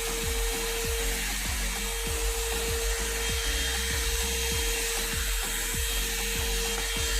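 Hot-air brush hair dryer running steadily, a constant whine over a rushing hiss of air, with the steady beat of background music underneath.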